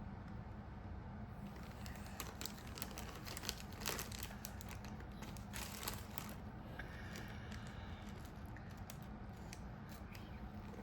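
Plastic craft-bead packaging being crinkled and pulled open by hand, with a run of irregular crackles and small clicks.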